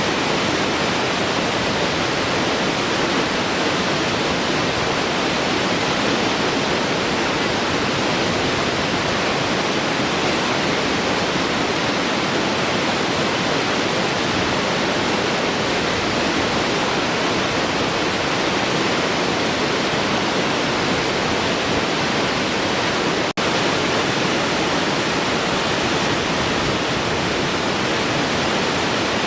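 Large waterfall flowing: a steady, even rush of falling water, broken once by a split-second dropout about three-quarters of the way through.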